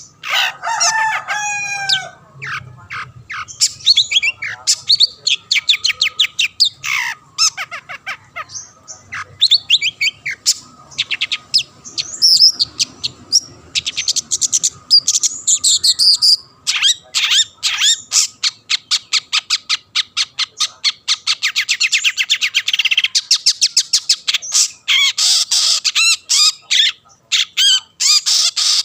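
Long-tailed shrike (cendet) singing loudly and nonstop: a fast, varied run of harsh chattering, rapid rattling trills and whistled notes, with a falling series of notes about a second in.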